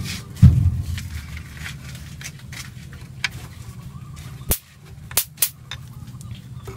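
Metal knocks and clicks of a steel Y-type socket wrench against the bolts of a Toyota 5K transmission oil pan as they are fitted: one loud knock about half a second in, then a few sharp clicks near the end, over a low hum.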